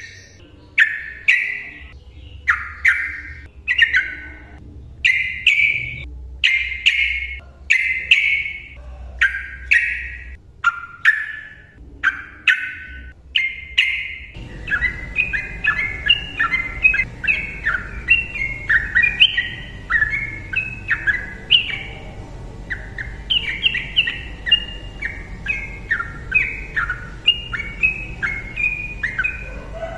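Sooty-headed bulbul (trucukan) singing in loud, clear phrases about once a second. About halfway through, the song breaks into a fast, continuous run of short chattering notes: the nonstop 'ropel' song used as a lure to get silent bulbuls singing.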